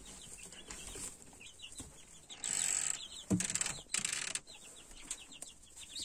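Young chicks peeping steadily, a stream of short, falling cheeps. Two loud rustles break in around the middle, with a knock at the start of the second.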